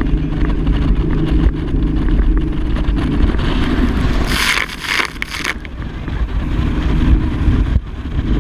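Speedboat engine running steadily under way, with a low rumble and wind buffeting the microphone. About four seconds in, a loud rushing hiss lasts a little over a second.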